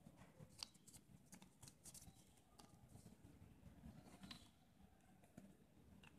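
Near silence, with faint scattered clicks and crinkles of a sheet of printer paper being folded and handled.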